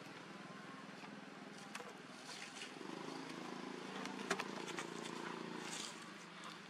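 A steady low engine hum, stronger from about three seconds in until near the end, with a few faint clicks.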